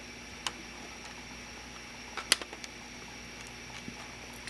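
A few light clicks and taps of thin 3D-printed plastic being handled, the sharpest about two seconds in, over a steady faint hum.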